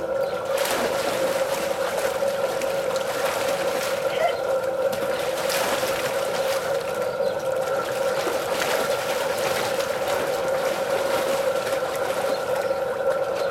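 Water splashing and sloshing in a small above-ground pool as a cocker spaniel paddles about, over a steady droning hum.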